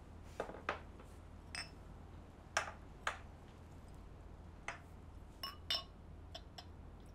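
Crystal glassware being handled on a glass-topped table: a string of light clicks and taps, with two ringing glass clinks near the end.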